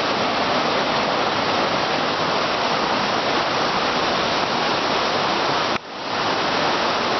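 Waterfall pouring steadily: an even, constant rush of falling water, with a brief break a little under six seconds in.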